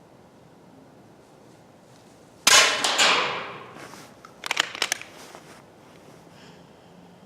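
A .22 Vulcan air rifle fires once: a sharp report that fades over about a second. About two seconds later comes a quick run of sharp clicks.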